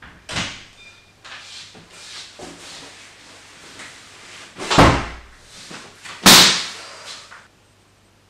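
Interior door with frosted glass panes being opened and shut, with small knocks and rustles and two loud bangs about a second and a half apart near the middle.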